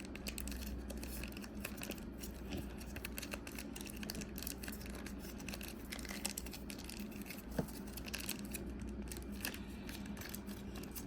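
Plastic pouch of liquid glitter being squeezed out by hand, with many small crinkles and clicks of the plastic.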